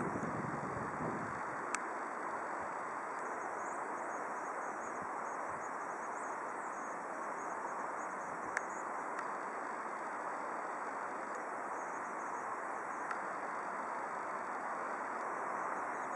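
Steady distant rush of an Airbus A319's jet engines as the airliner taxis, with insects chirping faintly and high in the grass. Two faint clicks, about two seconds and eight and a half seconds in.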